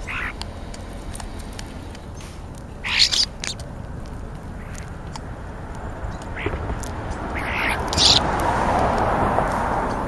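European starlings feeding close to the microphone, giving short harsh calls now and then, the loudest about three seconds in and just after eight seconds. A steady noise underneath grows louder over the last few seconds.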